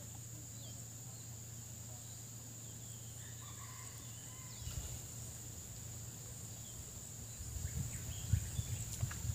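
Night insects keeping up one steady high-pitched drone, with scattered short chirps from small animals over a low steady hum. Irregular low bumps and rumbles come in near the end.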